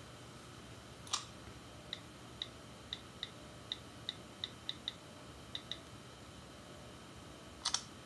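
Computer keyboard keys tapped about a dozen times in a quick, uneven run, between a sharper click about a second in and a louder double click near the end, over a faint low steady hum.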